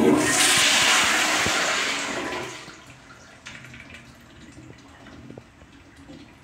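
Wall-hung commercial toilet flushing through its tankless flush valve: a loud rush of water that starts suddenly and fades over about two and a half seconds, dying down to a low level by about three seconds in.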